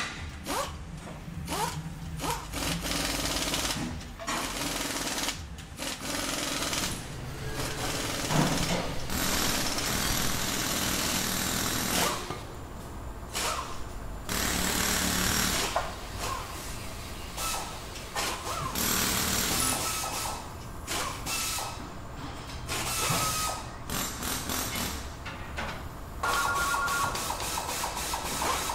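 Workshop sounds: power tools running in bursts of uneven length, with clicks and clatter between them. A steady two-tone ring starts about two seconds before the end.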